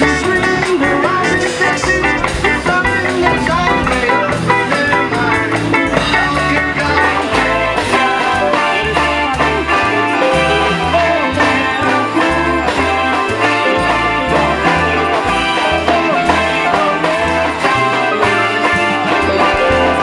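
Live band playing amplified music with electric and acoustic guitars, bass guitar and drums, and a male singer at the microphone.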